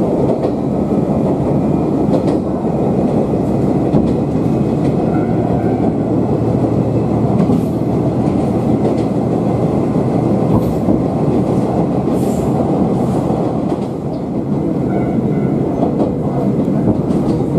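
Moka Railway diesel railcar running along the line, heard from inside the passenger cabin: a steady rumble of engine and wheels on the rails.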